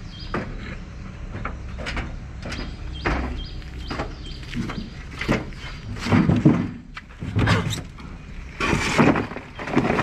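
Empty plastic crates knocking and clattering as they are handled and stacked into a truck bed: a string of separate knocks and thuds, the loudest in the second half.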